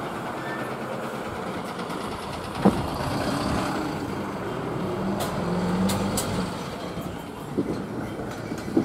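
Steady noise of a motor vehicle running nearby, with a brief low engine tone about halfway through and a few short dull thumps.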